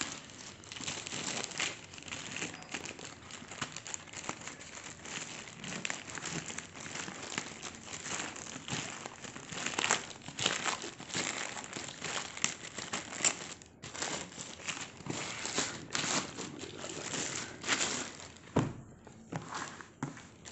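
Plastic courier mailer bag being crinkled and pulled open by hand, a continuous crackling rustle in uneven bursts.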